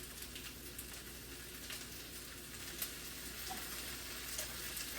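Fried rice sizzling in a hot pan as sauce is stirred in: a faint, steady sizzle with a few light ticks.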